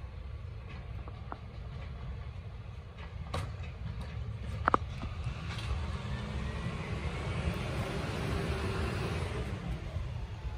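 Volvo side-loader garbage truck's diesel engine running steadily, with one sharp knock about four and a half seconds in. The engine grows louder over the second half as the truck comes closer.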